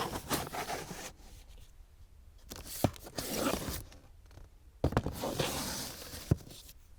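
Plastic DVD cases sliding against their neighbours on a shelf as they are pulled out and pushed back, three rounds of scraping, each with a sharp knock of case on case.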